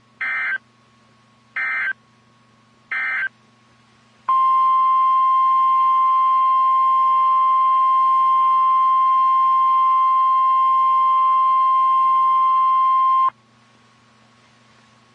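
NOAA Weather Radio alert signals: three short warbling SAME data bursts, the end-of-message code after the tornado warning. About a second later comes the steady 1050 Hz Weather Radio alert tone, which holds for about nine seconds and cuts off suddenly. A faint steady hum runs underneath.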